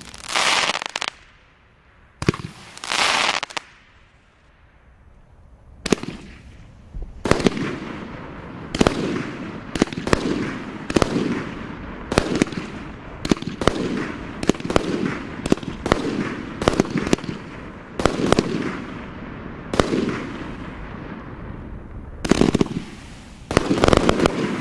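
Sinister 33-shot consumer firework cake firing its tubes in turn: sharp bangs of shots going off, with crackle and fizz from the bursting stars between them. Two shots go off near the start, followed by a pause of about two seconds. The rest fire in a rapid run of about two a second, with two last bursts near the end.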